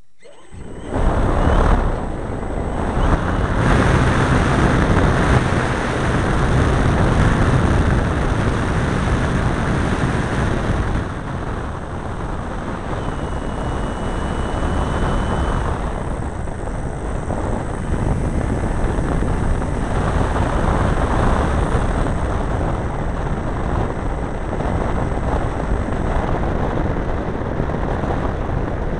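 Large RC model airplane's engine and propeller, heard from a camera on the plane, going to full power about a second in for a takeoff and running loud through the climb-out, mixed with heavy wind rush over the microphone.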